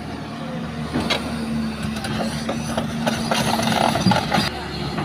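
Excavator's diesel engine running steadily, with a series of knocks and clanks from about a second in until near the end as the machine digs and loads sand.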